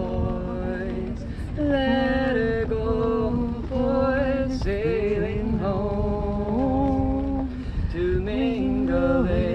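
Voices singing unaccompanied in long held notes that slide between pitches, over a steady low rumble.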